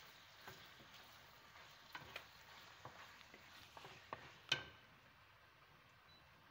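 Wooden spatula stirring raw chicken breast strips and chopped onion in a frying pan, with a faint sizzle of oil. A few short scrapes and taps of the spatula on the pan, the loudest a sharp knock about four and a half seconds in.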